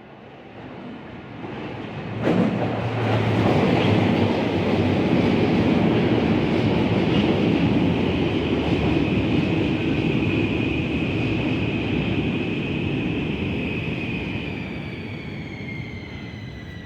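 Helsinki metro train running into an underground station: the rumble of wheels on rails builds up, with a sharp clack about two seconds in, then stays loud and steady under a high whine that falls in pitch near the end.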